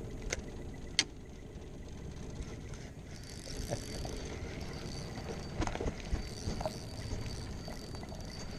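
Two sharp clicks in the first second, then a spinning reel being cranked to retrieve the lure, giving a faint steady high whine from about three seconds in. Scattered small knocks and handling noise from the rod and the aluminium boat sit over a low wind-and-water hush.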